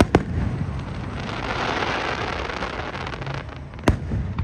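Fireworks going off: a sharp bang just after the start and another about four seconds in, with a spell of dense crackling in between.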